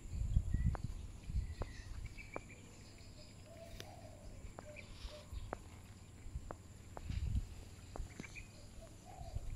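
Outdoor ambience: brief high bird chirps and scattered sharp ticks over a steady high insect drone, with low rumbling bursts of wind on the microphone near the start and about seven seconds in.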